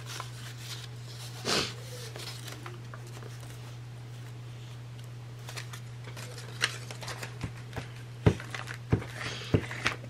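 Paper rustling as a torn collage piece is pressed and smoothed onto a journal page, then a string of light taps and clicks on the tabletop in the second half, over a steady low hum.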